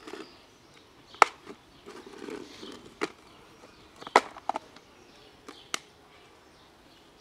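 Sharp plastic clicks and knocks as the snap-lock clips of a plastic food box are unlatched and its lid is taken off, the loudest a little over a second in. Dry cat kibble rattles softly in the box in between.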